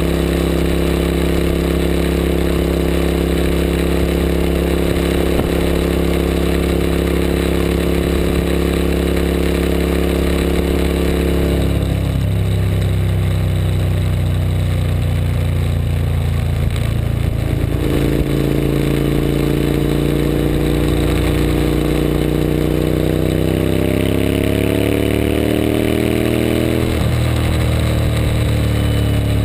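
Suzuki SV1000S 90-degree V-twin engine under way at motorway speed, with wind and road noise. It holds a steady note, falls away as the throttle is eased about twelve seconds in, then climbs steadily in pitch under acceleration before dropping abruptly near the end.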